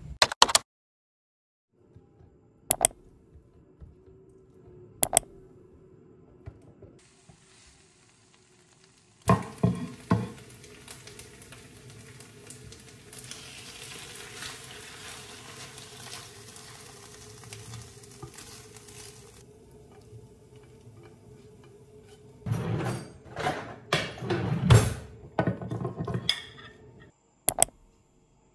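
A run of kitchen sounds: a few sharp clicks, then food sizzling steadily in a pan for several seconds, then a spoon and fork knocking and clinking against ceramic bowls and plates near the end.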